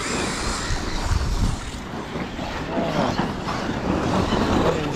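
Large-scale brushless electric RC cars running on a dirt track, their motors whining and changing pitch up and down in the second half.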